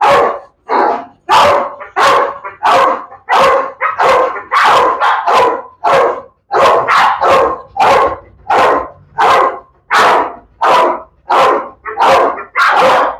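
A pit bull barking over and over at an even pace, a little under two loud barks a second, without a break.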